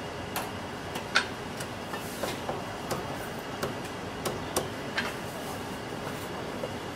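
Irregular sharp knocks and clinks of a cleaver and metal utensils on a thick wooden chopping block, over a steady hum of street traffic.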